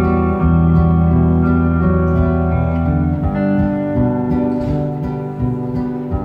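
Acoustic guitar and electric guitar playing together in an instrumental break of a slow folk song, with no singing. The low sustained notes drop away about three seconds in.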